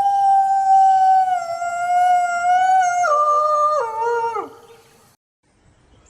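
A single long canine howl, held at a steady pitch for about four seconds, then dropping in two steps and sliding down as it fades out.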